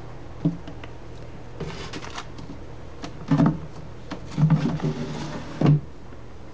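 A glass terrarium with a metal-framed screen top being handled: a few dull knocks and clunks, with a short cluster of them in the middle and a last one near the end.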